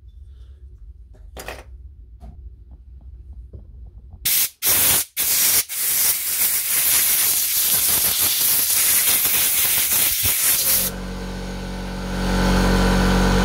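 Compressed-air blow gun blowing dirt out of an opened battery pack's circuit board: a few short blasts about four seconds in, then a long steady hiss. About eleven seconds in, an air compressor's motor cuts in with a steady low hum under the hiss.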